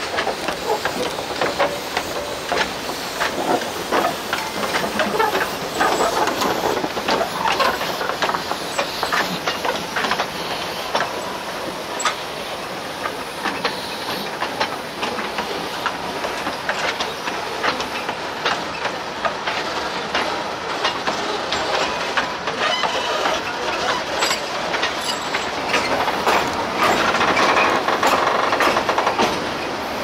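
Narrow-gauge steam train rolling slowly past: steel wheels clicking and clanking over the rail joints as the locomotive and carriages go by, with some hissing of steam from the locomotive.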